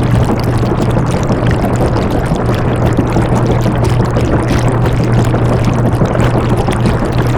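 Washing machine running: a steady low hum under an even, rushing, watery noise that does not change.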